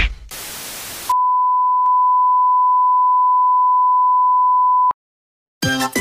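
A short loud hit, then about a second of TV-static hiss, then a steady high beep tone like a TV test tone, held for about four seconds before it cuts off sharply. Upbeat music starts near the end.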